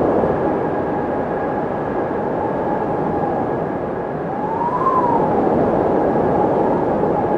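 Windmill turning in the wind: a steady rushing noise with a faint constant hum, and a whine that rises and falls once about every five seconds, heard once here a little past halfway.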